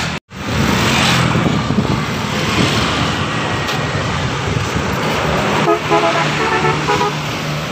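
Road traffic with a bus engine going by. About two-thirds of the way in, a bus's telolet horn plays a quick run of short notes that change pitch.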